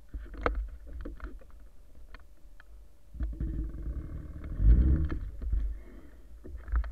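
E-bike riding over a bumpy grass track: wind buffeting the microphone as a deep rumble, with scattered knocks and rattles from the bike jolting over the ground. About three seconds in, a louder rattling rumble runs for around two seconds, then eases.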